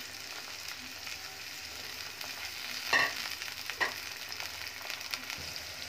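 Onions, green chillies and tomatoes frying in hot oil in a non-stick karahi with a steady sizzle. There are a few short knocks as a silicone spatula stirs against the pan, the loudest about three seconds in.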